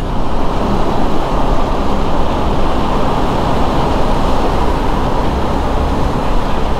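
KTM 390 Adventure single-cylinder motorcycle riding steadily through a long road tunnel: a constant rush of engine, wind and road noise, with the tunnel's traffic rumble around it.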